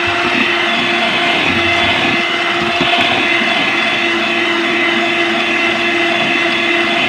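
Electric hand mixer running at one steady speed, its beaters whipping chilled cream in a stainless steel bowl, with a constant motor hum over the whirring.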